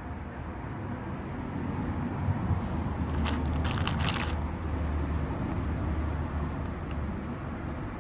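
Small twig fire in a micro stove crackling, with a quick cluster of crackles about three seconds in, over a low rumble that swells and then fades.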